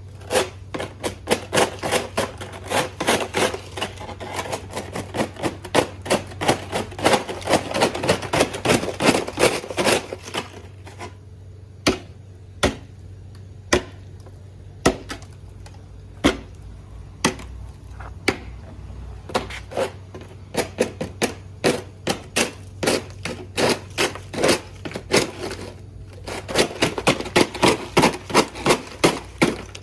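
The blade of a long-handled ice scraper striking and chipping a sheet of ice on a concrete sidewalk. Quick runs of sharp strikes, about two or three a second, thin out to single strikes for several seconds midway, then speed up again near the end.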